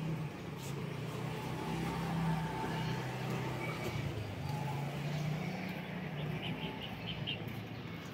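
A vehicle engine running with a steady low hum that stops about six and a half seconds in. A small bird chirps a quick run of about five notes near the end.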